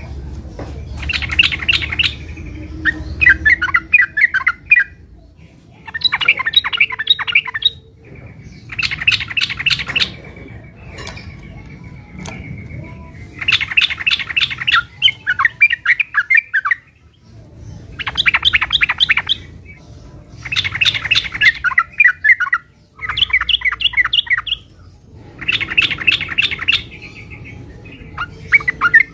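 Yellow-vented bulbul (trucukan) singing in fighting mode: bursts of rapid, chattering notes about every three to four seconds, each a second or two long.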